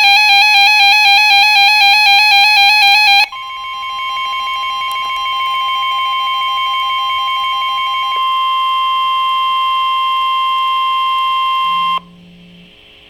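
Emergency Alert System attention tones: a loud electronic warble that flips rapidly between two pitches for about three seconds, then a steady alarm tone, led by a high pitch near 1 kHz with other steady tones under it, that cuts off abruptly near the end.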